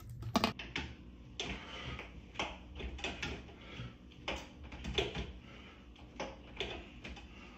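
A few quick clicks and knocks at the start, then a string of soft, evenly sharp ticks at roughly one to two a second.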